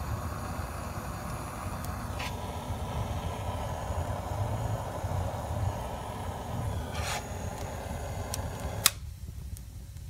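Bison Airlighter 420 butane torch running with a steady hiss as it is held to burning logs, with a couple of crackles from the fire. It cuts off suddenly with a sharp click near the end.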